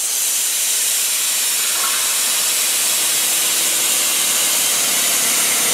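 300 A plasma cutter cutting 20 mm carbon steel: a steady hiss of the arc and the cutting air.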